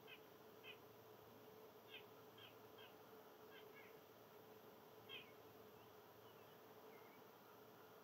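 Faint, short chip notes from small songbirds at a seed feeder, about ten scattered at irregular intervals, the strongest about five seconds in, over a faint steady hum.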